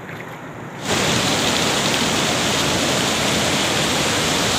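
Loud, steady rush of falling water close to a waterfall. It starts abruptly about a second in, after a fainter outdoor hiss.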